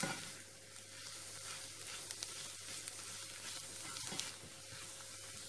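Onions, green chillies and ground spices sizzling steadily in coconut oil in a nonstick pan as they are stirred with a spatula, with a few faint ticks. This is the sautéing stage, when the raw smell of the spices is being fried off.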